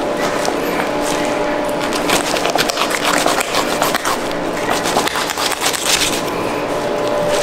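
Knife cutting and scraping along a bluefin tuna's backbone and rib bones, a busy run of short scratchy strokes.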